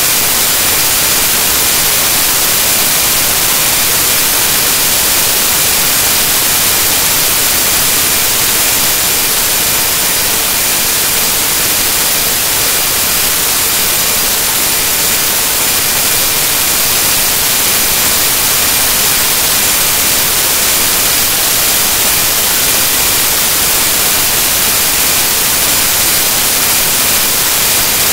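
Loud, steady static hiss that never changes, strongest in the high pitches.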